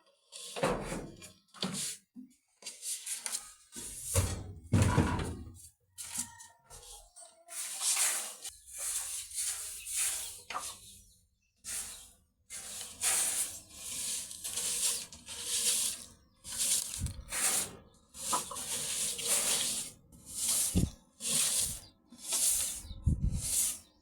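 Brush scrubbing a bamboo floor in repeated strokes, about one a second, after a few scattered knocks and bumps at the start.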